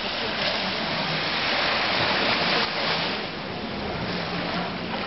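Steady rushing of wind and water on a moving boat, with a faint, steady low engine hum underneath.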